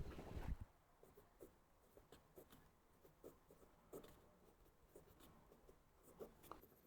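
Faint scratching and light ticks of hand-writing, with a short rustle at the very start; otherwise near silence.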